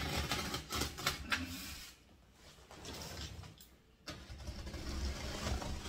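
Scissors dragged along the packing tape of a cardboard box, slitting it open: rough scraping and tearing of tape and cardboard. It comes in two stretches, the second starting about four seconds in.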